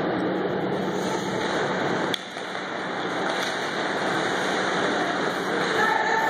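Steady, noisy din of an ice hockey rink during play, with a sharp click about two seconds in, after which the din is briefly quieter.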